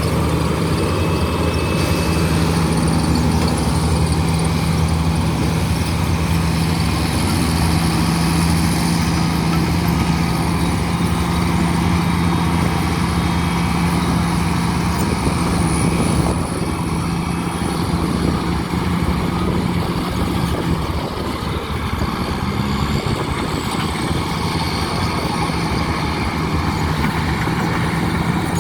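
Diesel engine of a heavy earthmoving machine running steadily, a continuous drone that drops slightly in level a little past halfway through.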